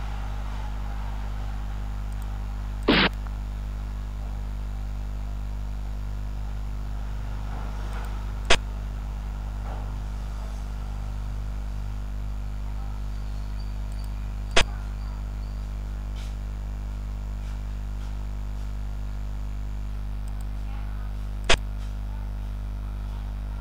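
Four sharp clicks several seconds apart as xiangqi pieces are moved on the board, the first a short double click, over a steady low hum.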